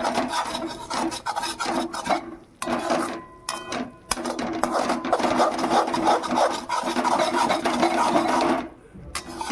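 A perforated steel spatula scrapes and stirs a thick spice paste around a steel kadhai. It makes a continuous run of quick metal-on-metal rasping strokes as the masala is being roasted, and the strokes thin out near the end.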